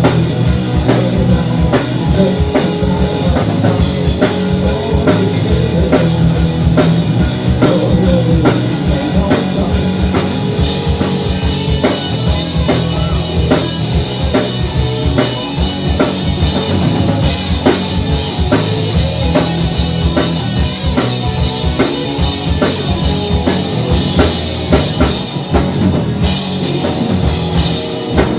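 Rock band playing live: a drum kit keeps a fast, steady beat under guitar.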